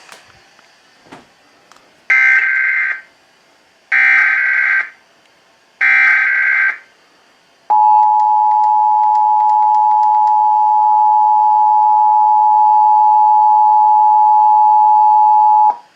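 Emergency Alert System SAME header: three separate one-second bursts of buzzing digital data tones. These are followed by the EAS two-tone attention signal (853 and 960 Hz), held steady for about eight seconds and cutting off sharply. Together they open an alert, here a Required Monthly Test.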